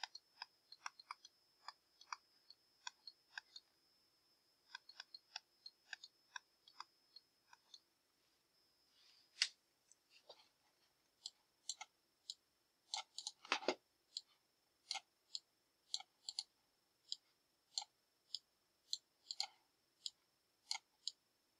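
Faint, irregular clicks and taps of a stylus on a tablet screen during handwriting, with one louder knock a little past the middle. A faint steady high-pitched whine sits underneath.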